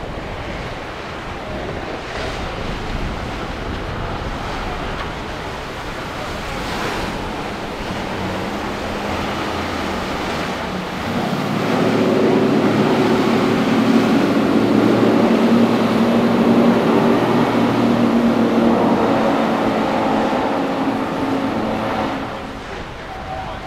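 Wind and surf noise, joined about eight seconds in by a boat's engines, which grow loud at about eleven seconds and run steadily before fading near the end as the boat passes.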